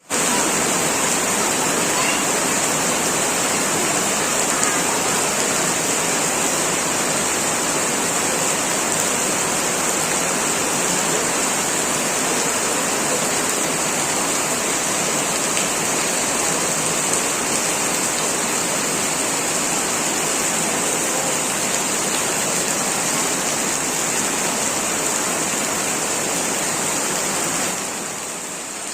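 Heavy rain pouring steadily, a dense even hiss with a constant high-pitched band over it, dipping briefly near the end.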